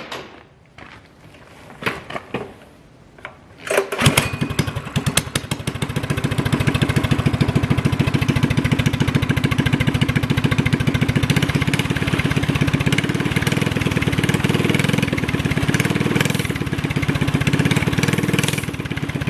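Coleman CT200U-EX minibike's single-cylinder engine, fitted with a straight-pipe open header, starting about four seconds in after a few knocks, then running loud and steady.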